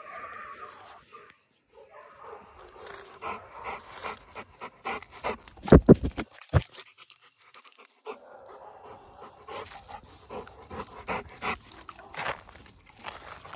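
A French bulldog's breathing and movement sounds amid scattered clicks and knocks, with a cluster of loud thumps about six seconds in.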